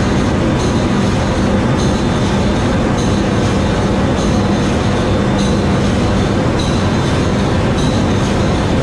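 Loud, steady engine-room din of a container ship's 62,000-horsepower low-speed main diesel engine running at sea, with a steady hum and a faint pulse repeating about once a second.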